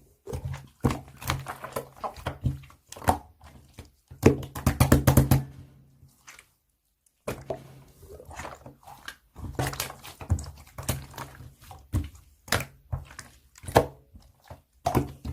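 Rapid, irregular taps and knocks over a low steady hum, stopping for about a second a little before halfway.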